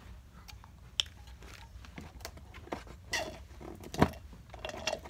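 Handling sounds from a taped cardboard box: scattered light clicks and rustles, with a louder knock about four seconds in.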